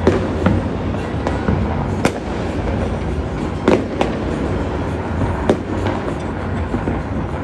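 Distant New Year fireworks and firecrackers going off across a city: irregular bangs and pops, the sharpest about two seconds and just under four seconds in, over a continuous low rumble of explosions.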